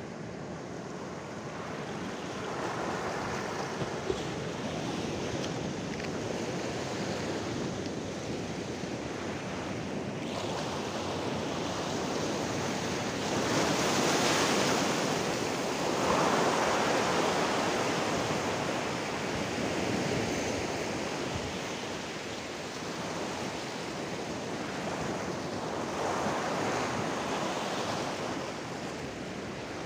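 Sea surf breaking and washing over a rocky shore ledge: a steady rush of waves, swelling loudest about halfway through.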